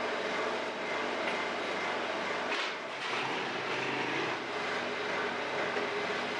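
Steady drone of bakery machinery running, with several held tones, and a brief rush of noise about two and a half seconds in.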